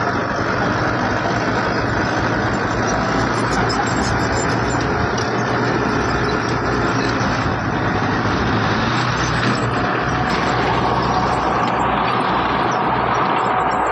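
Heavy diesel construction machinery running steadily, a constant low engine hum under a broad, even noise.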